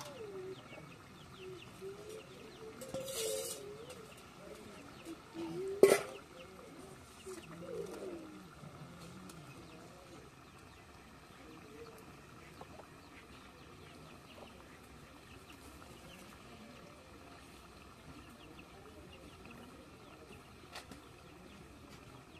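Chickens clucking, mostly in the first half, with a short hiss about three seconds in and a sharp knock about six seconds in, the loudest sound.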